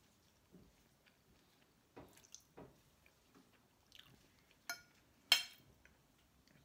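Soft mouth sounds of eating spaghetti: slurping and chewing noodles. About five seconds in come two sharp clinks of a metal fork against the plate, the second louder and ringing briefly.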